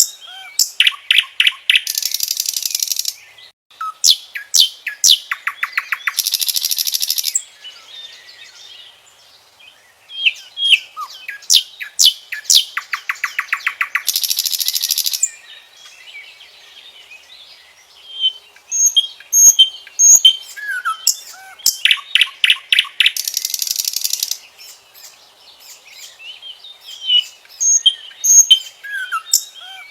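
Common nightingale singing: about five loud phrases of fast repeated notes, whistles and rattles, each a few seconds long, separated by short pauses. Fainter chirps are heard in the gaps.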